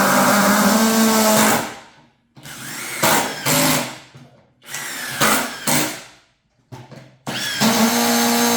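Cordless impact drivers running together, driving screws. One long run stops about a second and a half in, followed by two shorter bursts with gaps, a brief blip, and another long run starting near the end.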